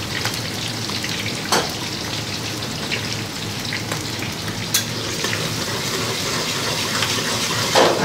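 Soaked chana and urad dal with curry leaves sizzling in hot oil in a wok, a steady frying hiss with a few sharp pops. Near the end a spatula stirs and clatters in the wok.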